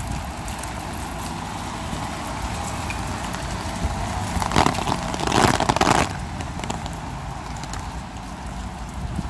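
Wet-street traffic ambience with a steady low rumble. About four and a half seconds in, a car passes on the wet cobblestones, its tyre noise swelling and crackling for about a second and a half before fading back.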